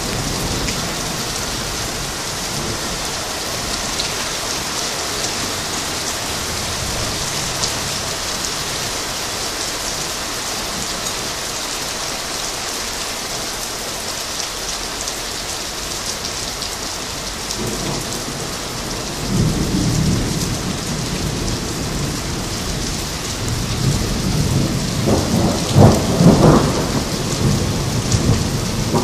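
Steady rain hissing down. Thunder rumbles low about two-thirds of the way in, and a louder roll of thunder with several peaks follows near the end.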